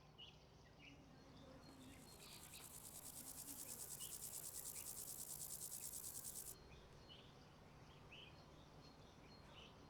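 Grasshopper stridulating: a faint, high, rapidly pulsing buzz starts about a second and a half in and stops abruptly about six and a half seconds in. Short faint bird chirps sound around it.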